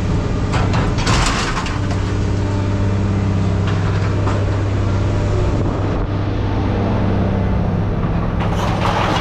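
A heavy machine's engine running steadily with a low hum, with bursts of clatter about a second in and again near the end.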